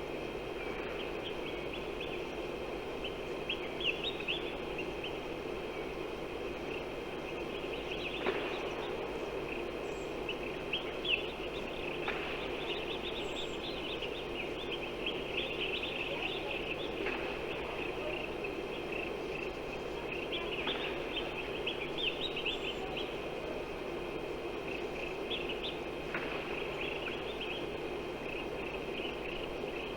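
Small birds chirping in repeated quick bursts of high, rapid notes every few seconds over a steady background rush and faint low hum.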